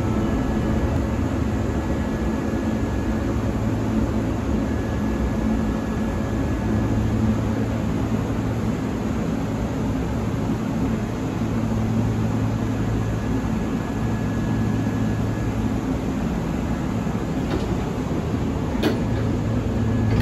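Steady running noise inside a Kintetsu 30000 series Vista Car limited express train: a constant low hum and rumble under a hiss, with a few sharp clicks near the end.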